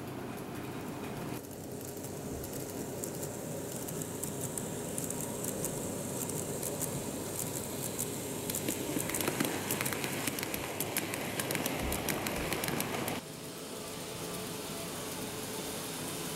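N gauge model train running along the track: a steady running noise with rapid light clicking of the wheels, busiest in the middle. The sound changes abruptly about a second in and again near the end.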